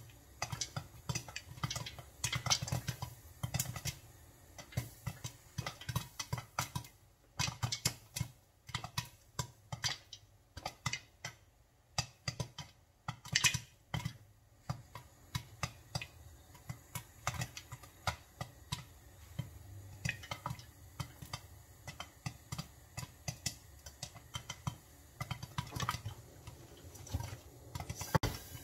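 Popcorn kernels popping in oil in a covered pan, irregular sharp pops hitting the glass lid, sometimes several in quick succession and sometimes with short gaps between.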